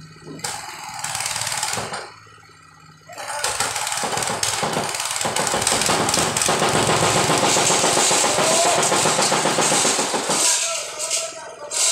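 Mikasa engine-driven machine on a scaffold running hard, a dense, loud mechanical racket that builds up about three seconds in and eases off shortly before the end.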